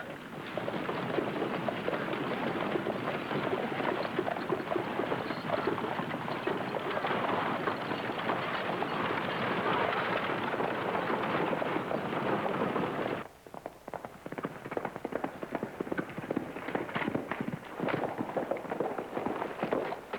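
Horses' hooves galloping: a dense, loud clatter of many hoofbeats. About two-thirds of the way through it breaks off abruptly into quieter, more separate hoofbeats.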